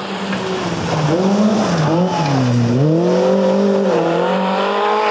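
Škoda Estelle-family rally car's rear-mounted four-cylinder engine running hard as the car passes close by. The engine pitch dips as the car goes past, then climbs again as it accelerates away.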